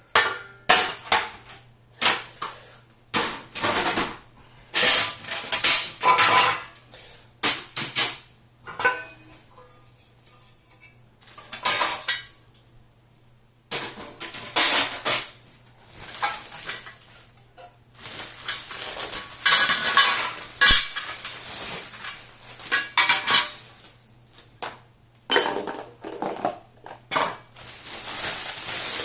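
Kit parts being handled and stacked on a table: repeated clinks, knocks and clatters of hard pieces set down against one another, in irregular bursts with short pauses.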